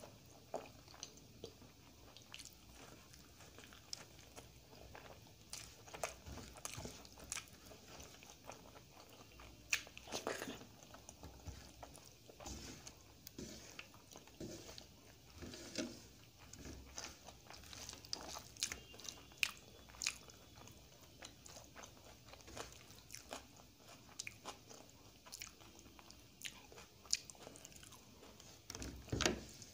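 Close-miked chewing of mouthfuls of dal, rice and scrambled egg eaten by hand, with irregular wet mouth clicks and smacks several times a second. The loudest clicks come about ten seconds in and near the end.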